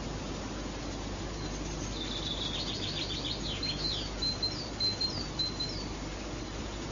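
A small songbird singing: about two seconds in, a few seconds of quick high chirps and trills, ending in a string of short repeated notes, over a steady background hiss.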